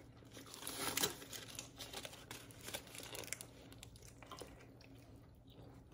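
A bite taken from a burrito and chewed, with faint scattered crinkles and clicks of its wrapper; the loudest clicks come about a second in.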